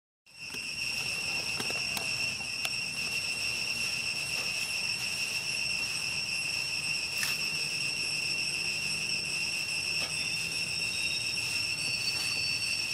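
Steady, high-pitched insect drone that holds one unchanging tone throughout, with a few faint ticks.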